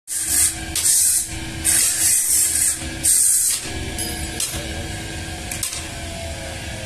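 About five rough scraping or rubbing strokes, each under a second, in the first three and a half seconds, over a steady hum. After that only the hum remains, with a few light knocks.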